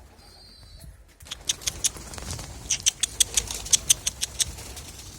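Rustling with a quick, irregular run of sharp clicks, several a second, beginning about a second in over a steady rushing noise.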